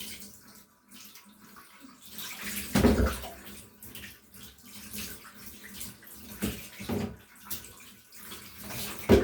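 Water splashing and sloshing in irregular bursts as a cat is washed in a bath, the loudest splashes about three seconds in and just before the end.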